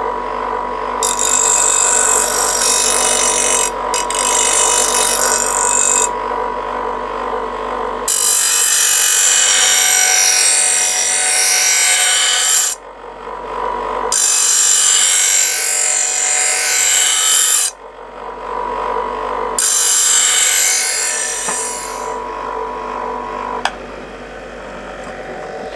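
Electric bench grinder running with a steady whine while a steel lawnmower blade is pressed against the stone four times. Each pass brings a few seconds of hissing, scraping grinding of metal before the blade is lifted off.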